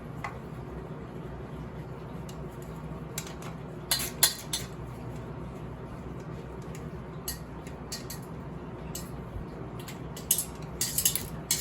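Hand tools and a small steel bolt clinking against metal as an exhaust bolt is taken off a dirt bike, in short clusters of clicks about four seconds in and again near the end, over a steady low hum.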